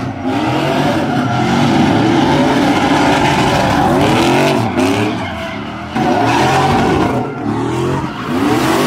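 Pickup truck engines revving hard and repeatedly, rising and falling, while the tyres squeal and skid as the trucks drift sideways in tyre smoke.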